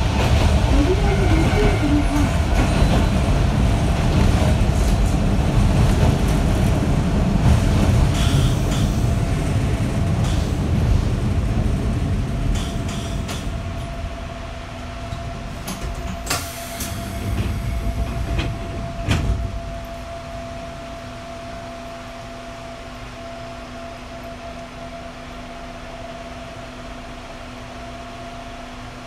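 Running noise of a Sanki Railway Hokusei Line 270-series narrow-gauge electric train heard from inside the carriage: a heavy low rumble that dies down about halfway through. A couple of sharp clicks follow, then a quieter steady hum with a constant tone.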